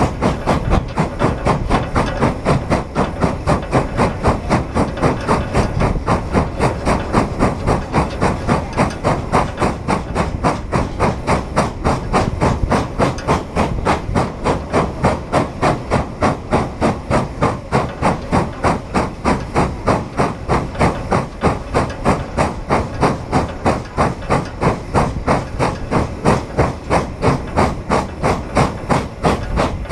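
Exhaust of Frisco 1630, a 2-10-0 Decapod steam locomotive, chuffing hard in an even, quick beat of about three a second with steam hiss under it. It is working under a heavy load, a 2900-ton train of 135 empty cars.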